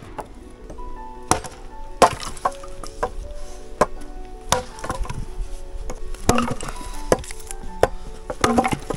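Firewood being broken up: about a dozen sharp wooden cracks and knocks at irregular intervals, with background music playing a plucked melody underneath.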